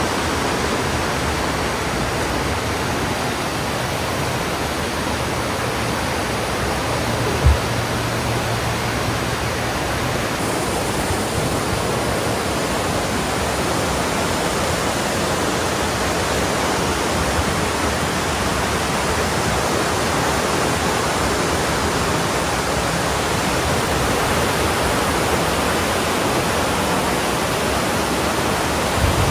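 Steady, loud rush of running water, with one short low thump about seven and a half seconds in.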